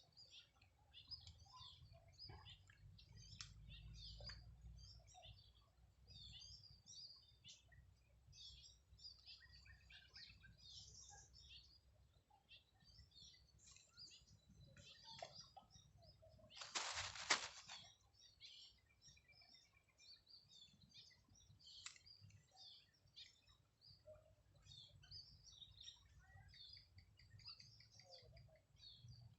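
Faint outdoor ambience of birds chirping in many short, scattered calls over a low rumble. One brief, louder rush of noise comes about seventeen seconds in.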